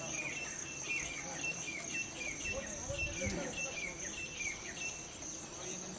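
Insects trilling in a steady high buzz, with a short falling chirp repeated about twice a second that stops near the end.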